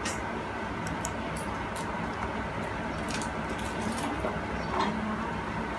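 Steady low background hum with scattered faint clicks and ticks, several of them close together about three to four seconds in.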